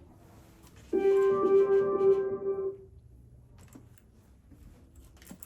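A single held musical note with a steady pitch, starting abruptly about a second in and lasting under two seconds, followed by a few faint clicks.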